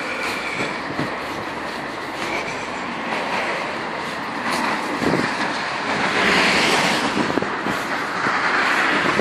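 Footsteps on slushy, snow-covered pavement under a steady rushing noise that swells twice in the second half.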